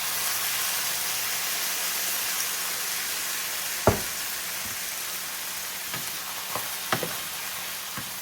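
Ground beef and tomato sauce sizzling in a frying pan, with a few knocks of a utensil against the pan. The sharpest knock comes about four seconds in, and two lighter ones come around seven seconds.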